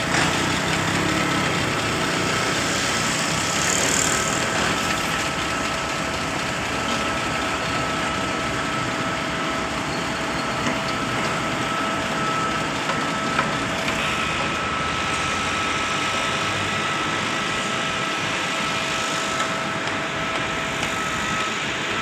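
XCMG truck-mounted concrete pump running steadily: even engine and machinery noise with a steady high whine.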